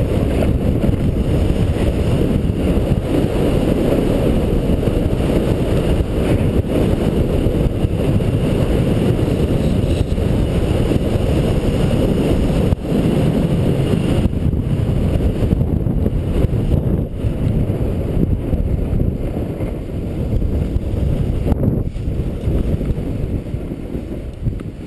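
Wind buffeting a skier's action-camera microphone while skiing downhill: a loud, steady low rumble that eases somewhat about halfway through.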